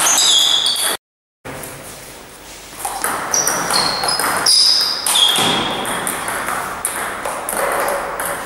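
Table tennis rally: the ball clicking off the bats and the table, with short high squeaks from shoes on the sports-hall floor. The sound drops out completely for about half a second, about a second in.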